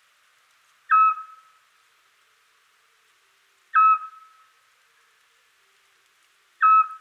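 Eurasian scops owl giving its territorial call: three short, plain whistled notes at an even pace, one about every three seconds.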